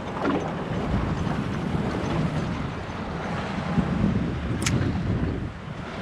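Wind buffeting the microphone in a low, uneven rumble, with one sharp click a little after four and a half seconds in.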